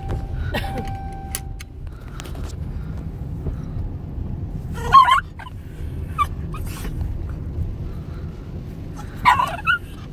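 Dog letting out short, agitated yelping barks at the moving windshield wipers, once about five seconds in and again near the end, over the steady low rumble of the car.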